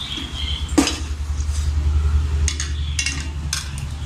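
A perforated steel ladle stirring thick mushroom masala in a stainless-steel kadai, scraping the pan and striking it with several sharp metallic clinks, over a low steady rumble.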